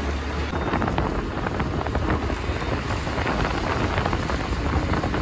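Wind buffeting the microphone of a scooter on the move, over the scooter's running and its tyres on the road: a steady rough rush with constant crackling and a low rumble.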